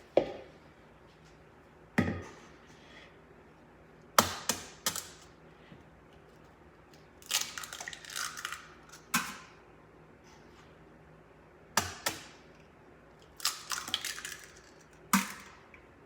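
Eggs being cracked for an omelet: a series of sharp knocks and taps, some single and some in quick clusters, a few seconds apart.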